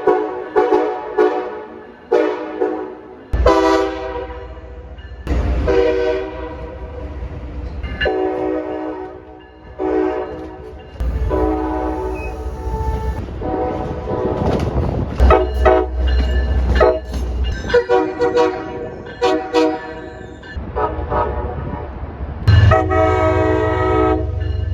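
Train air horns sounding chords in a string of separately recorded clips: a quick run of short blasts at first, then several longer held soundings. A low rumble of the passing trains lies under many of them, and the background changes abruptly between clips.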